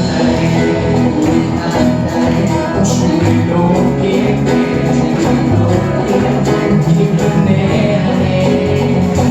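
Live church praise band playing an instrumental passage: drum kit keeping a steady beat under bass and guitar chords.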